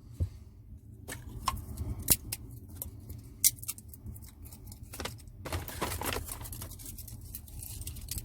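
Firewood being broken and handled by hand: a few sharp cracks and knocks about a second apart, then a flurry of rustling and clatter about five and a half seconds in, over a low steady hum.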